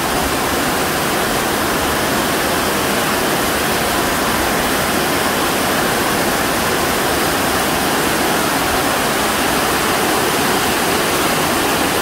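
Heavy rain falling steadily on a corrugated metal roof, a loud, even rush with no letup.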